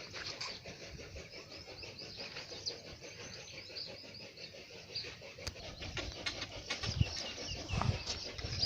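Many small birds chirping continuously, with a few dull low thumps or knocks in the second half.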